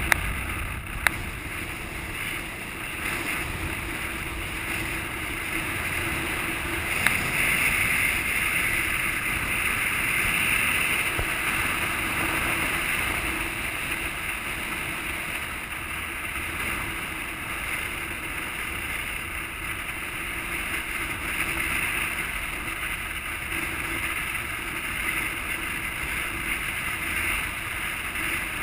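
Wind rushing over a camera mounted on the outside of a moving car, over a steady road and engine drone. Two brief clicks stand out, about a second in and about seven seconds in.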